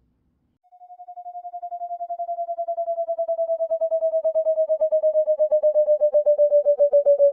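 Synthesized flying-saucer sound effect: a single rapidly pulsing electronic tone, starting just under a second in, that slowly falls in pitch and grows steadily louder.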